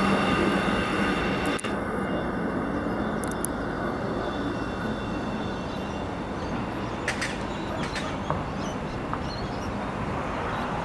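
A train running past and away: a steady rumble of wheels on rail that slowly fades. Faint high squealing tones die out about halfway through, and a couple of sharp clicks come near the end.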